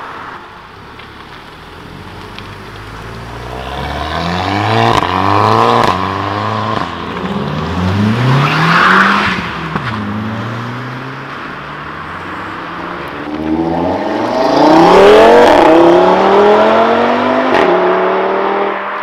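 Car engines accelerating hard past on a road, the engine note climbing and dropping back at each gear change. There are two loud runs, one about four to nine seconds in and a louder one about fourteen to seventeen seconds in.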